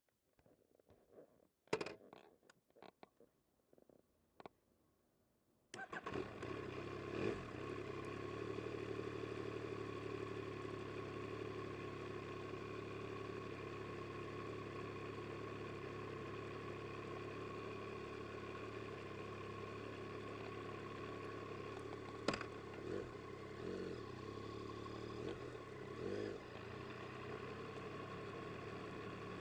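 A few faint clicks and knocks, then the 2022 Yamaha MT-09 SP's inline three-cylinder engine starts about six seconds in and settles into a steady idle. A single sharp click comes later.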